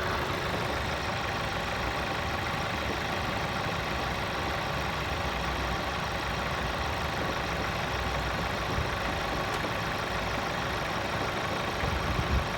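Skoda Octavia A7's 1.8 TSI (CJSA) turbo petrol four-cylinder idling steadily during warm-up, with the knock that shows up about a minute after starting. The owner suspects the knocking comes from a piston.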